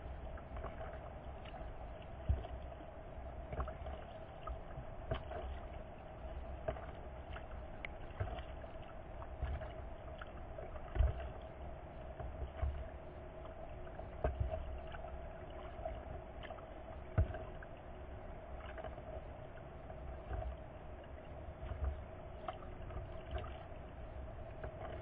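Water lapping and splashing around a kayak, with irregular knocks and thumps every second or two, over a faint steady hum.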